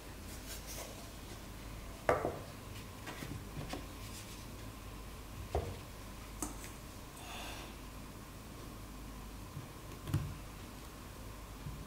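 Bamboo steamer baskets and lid being handled: a few light wooden knocks and clacks as the tiers are lifted apart and set down, with some rubbing and a brief scrape in between.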